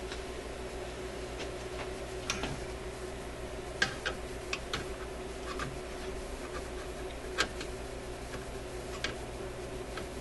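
Irregular small metal clicks and taps as a short screwdriver bit, gripped in pliers, works at a stubborn screw holding a radio's metal shield can. A steady low hum runs underneath.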